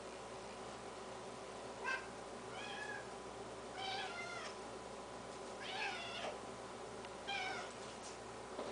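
Domestic cat meowing to beg for food: five short meows spread unevenly over several seconds.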